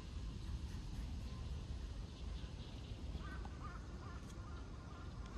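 Outdoor ambience: a steady low rumble, with a bird calling faintly a few times in the second half.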